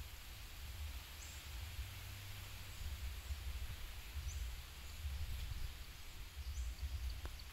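Outdoor ambience: a low, uneven rumble under a steady high hiss, with three short, high bird chirps spread a few seconds apart.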